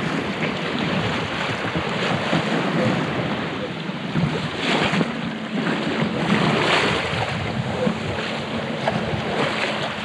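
Wind buffeting the microphone over the wash of sea water along the hull of a sailboat under sail in light air.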